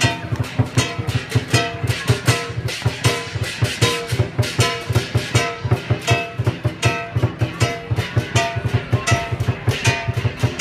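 Instrumental music with a fast, steady beat, played over the PA loudspeakers as accompaniment to a dragon dance.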